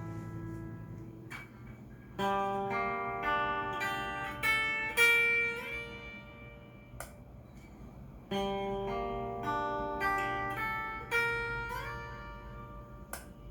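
Cort S-series electric guitar played clean through a Fender amp: a ringing chord fading out, then picked chords and single notes with slides between them. The phrase starts about two seconds in and is played again about eight seconds in.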